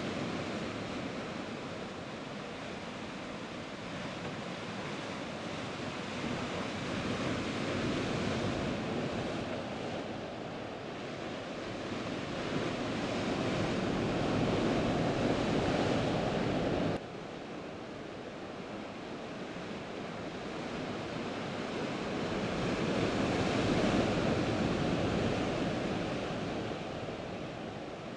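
Heavy sea surf breaking and washing over volcanic rocks, swelling and easing in long surges, with wind on the microphone. The sound drops suddenly about two-thirds of the way through, then builds again.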